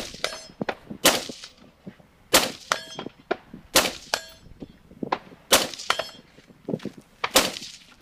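A series of rifle shots about one and a half seconds apart, most followed a moment later by the metallic ring of a steel target being hit.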